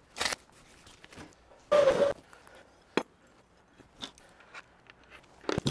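A few short rustling and knocking handling noises as awning parts and their packaging are moved on the table, with one sharp click about three seconds in.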